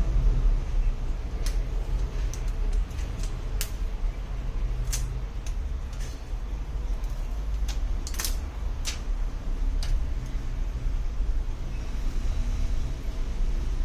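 A steady low hum with scattered light clicks and taps at irregular intervals, the sharpest about eight seconds in.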